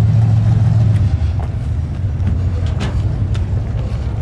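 A car engine running at low revs, a steady low rumble that eases off a little after about a second, with a few faint clicks over it.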